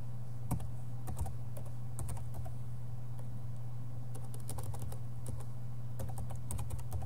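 Computer keyboard typing: irregular keystroke clicks in short runs as a word is typed, partly deleted and retyped, over a steady low hum.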